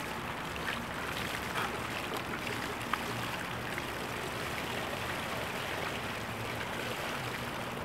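Ice water pouring steadily from a bucket over a seated person's head and splashing onto the gravel, with a few small ticks in the stream.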